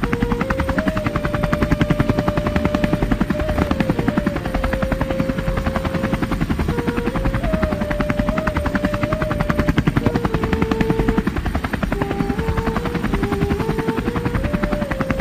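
Background music: a flute-like melody stepping from note to note over a fast, even chopping pulse.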